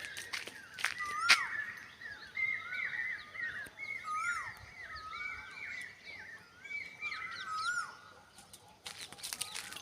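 Several birds calling: repeated short, slurred, down-curving chirps that overlap one another. There are a few sharp clicks about a second in and a cluster of clicks near the end.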